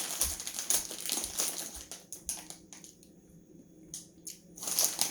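Crinkling, crackling and clicking of plastic packaging being handled, in quick irregular bursts that die down in the middle and pick up again near the end.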